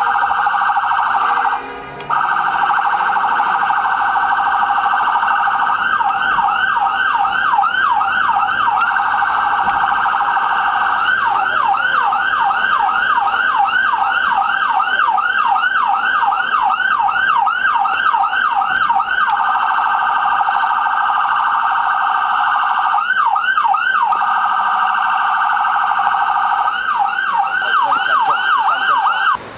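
Electronic emergency-vehicle siren sounding continuously, switching between a fast warble and stretches of quick up-and-down yelping sweeps, about three or four a second. It breaks off briefly about two seconds in.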